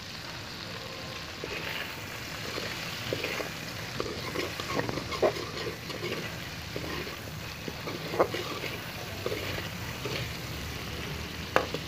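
Cauliflower florets sizzling in hot oil in a metal pan, stirred with a spatula that scrapes and knocks against the pan every second or two.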